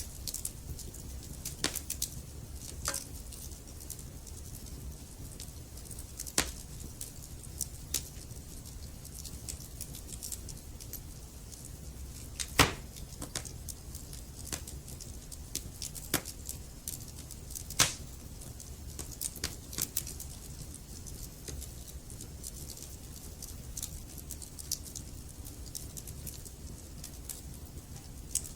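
Wood fire burning in a fireplace: a low steady rumble with frequent sharp crackles and pops from the burning logs, a few louder pops standing out, the loudest about twelve and eighteen seconds in.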